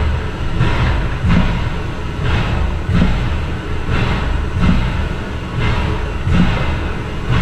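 Inside the cab of steam locomotive No. 40: a steady low rumble with a rhythmic steam chuff repeating a little more than once a second.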